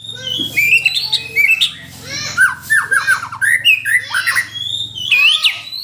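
Seven-month-old green ringneck parakeet giving a rapid, continuous string of squawks and chirps, with a quick run of short falling notes in the middle.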